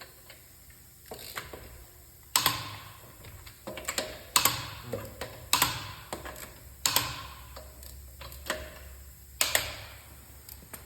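A series of sharp mechanical clicks and knocks from hand tools at a car wheel: five loud ones a second or two apart, each with a short ringing tail, and fainter ticks between them.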